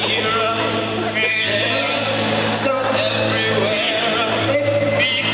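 Male voices singing over a strummed acoustic guitar.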